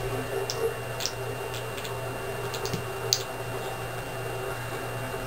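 A few light, irregular clicks and taps as a cat's paws and claws touch the bathroom sink and counter while it reaches for a trickling faucet, over a steady low hum.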